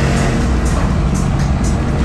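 Audi S4's turbocharged inline five-cylinder, straight-piped, running steadily at high revs under way, heard from inside the cabin, with music playing over it.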